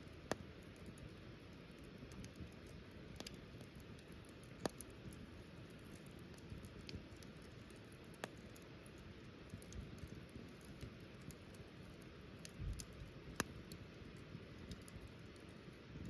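Wood fire burning in a small metal fire pit, crackling with irregular sharp pops over a low steady rush; a few pops stand out louder, one right at the start, one near five seconds and one about thirteen seconds in.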